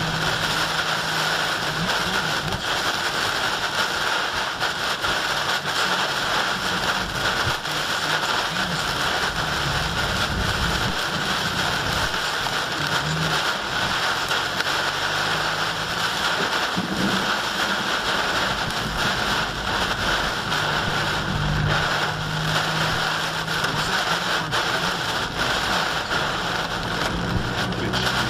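Torrential wind-driven rain pelting a car's windshield and body, heard from inside the cabin as a steady, dense hiss and drumming.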